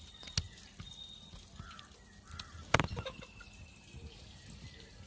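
Faint outdoor background with distant birds calling briefly, and a few light sharp clicks, the loudest a little under three seconds in.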